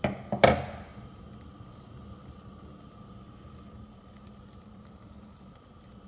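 Two sharp knocks right at the start, then a steady low hiss with faint scattered ticks from a thin rumali roti cooking on an upside-down frying pan over a gas flame.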